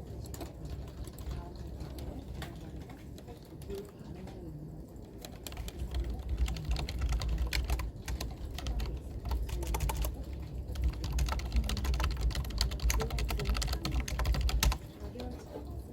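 Typing on a computer keyboard: a rapid, uneven run of key clicks that gets busier about six seconds in and stops abruptly near the end.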